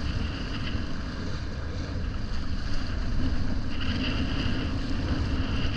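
Wind buffeting the microphone over the rush of water while windfoiling, a steady rumble with a hiss that grows louder about four seconds in.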